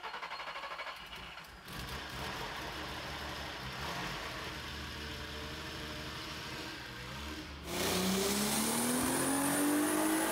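Turbocharged 2.8-litre VR6 engine turning over briefly on the starter, then catching and running on its first start with a newly fitted standalone ECU and base tune. Near the end it turns suddenly louder, with the pitch slowly rising as it revs.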